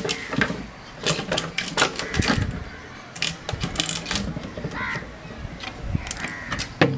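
Marker pen scratching in short, irregular strokes on a plastic water can, with small clicks and knocks as the can is handled.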